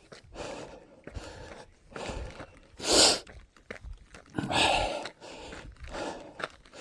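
Heavy breathing of a runner climbing a mountain trail, panting about once a second with footsteps, and two louder exhales about three and four and a half seconds in.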